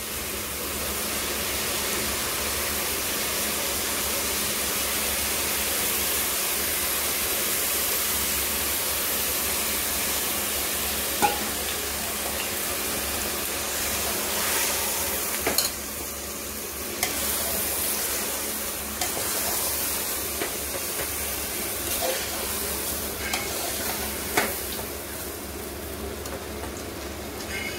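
Rice and onion-tomato masala sizzling in hot oil in an aluminium pressure cooker, with a steady frying hiss. A metal slotted spoon stirs through it, with a few sharp clicks as it knocks against the pot in the second half.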